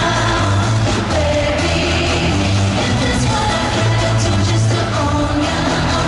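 Live pop music in a large arena: a female vocal group singing over a band backing track with a heavy, repeating bass line, heard from among the audience.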